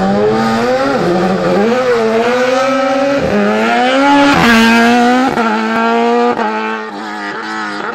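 Open-cockpit sports-prototype race car engine revving hard through the gears, its pitch climbing and then dropping sharply at each upshift. It is loudest about halfway through, then fades with distance near the end.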